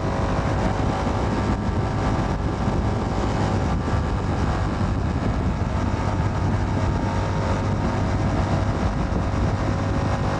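Motorcycle engine running steadily at cruising speed, heard from the rider's helmet with wind and road noise; no revving or gear changes.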